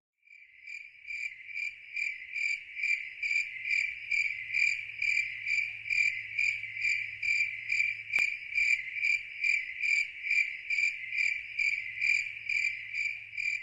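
A cricket chirping steadily and evenly, about three chirps a second, over a faint low hum, with a single soft click partway through.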